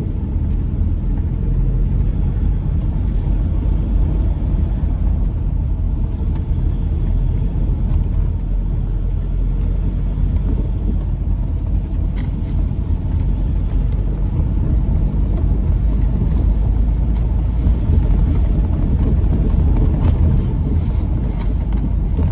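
Steady low rumble of a road vehicle driving, engine and road noise without let-up.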